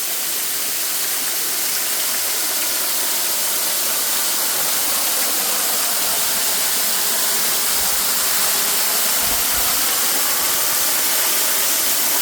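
Buttermilk Falls pouring down close by, heard from beneath the falls: a steady rush of falling water.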